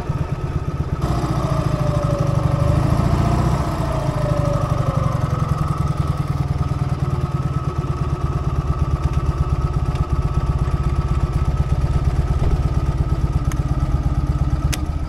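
Vintage BMW flat-twin motorcycle engine idling steadily at a standstill.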